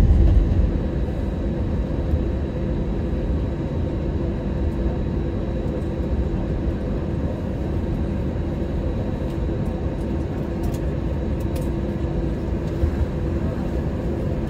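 Steady cabin noise inside an Airbus airliner: engine hum and air-conditioning hiss with a few faint constant tones. A heavier low rumble eases off about half a second in.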